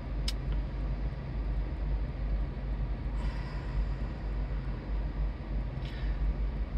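Steady low rumble of a running vehicle, with one sharp click about a third of a second in.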